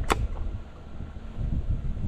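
Wind rumbling on the microphone, with one short sharp click just after the start.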